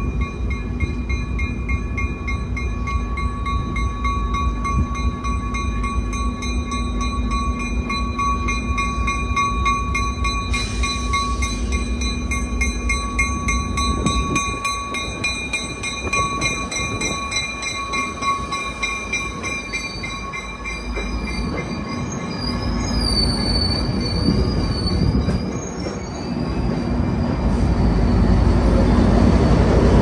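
Trinity Railway Express commuter train rolling slowly into the platform cab car first, wheels rumbling on the rails under a steady high ringing squeal. About two-thirds through, the wheel squeal wavers in pitch, and near the end the diesel locomotive pushing at the rear grows louder as it draws level.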